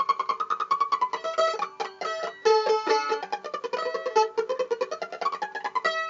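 Music played on a plucked string instrument, picked rapidly in quick repeated notes carrying a melody, with a final strummed chord near the end that rings on.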